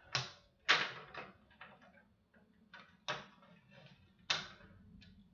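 A handful of sharp, irregularly spaced clicks and knocks from handling equipment as a power cord is plugged in.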